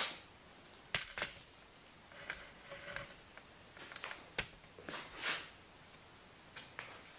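Faint handling noise from a handheld camera being turned around: a few sharp clicks and short rustling swishes over a quiet room.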